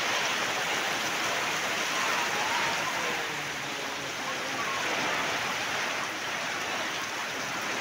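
Heavy rain pouring down onto waterlogged ground, a dense, even hiss that holds steady throughout.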